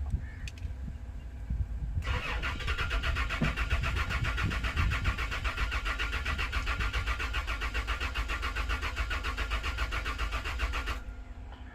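Toyota Land Cruiser petrol engine turned over by the starter motor for about nine seconds in an even, pulsing crank without catching, then the key is released. This is a crank-no-start condition.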